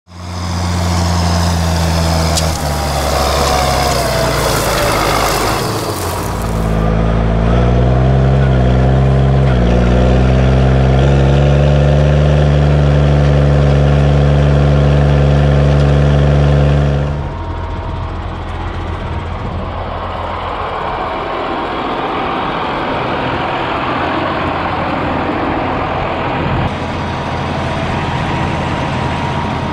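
Case IH MX135 tractor's six-cylinder diesel engine running loud and steady; its revs climb about seven seconds in and hold high. After about seventeen seconds it drops to a quieter, rougher running sound.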